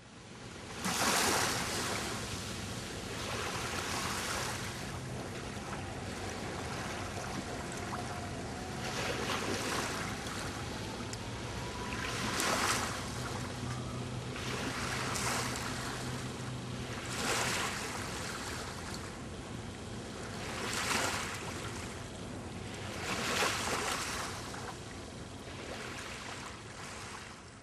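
Water rushing and wind on the microphone aboard a moving boat, swelling in surges every two to four seconds over a faint steady low hum.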